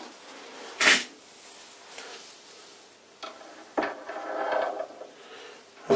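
Steel lathe cross-slide feed screw being slid into the cross slide, metal on metal. A sharp clink about a second in, then another clink with a second of scraping and ringing near the end.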